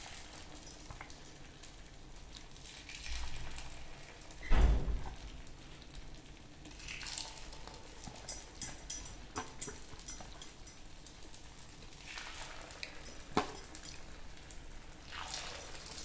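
Egg batter being spooned into the hot cavities of a paddu pan, each pour giving a brief sizzle, with light clinks of the spoon on the pan. There is a single loud thump about four and a half seconds in.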